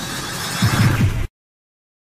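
Whoosh sound effect for an animated logo: a dense rushing noise that swells, with a heavier low rumble near its end, and cuts off suddenly a little over a second in.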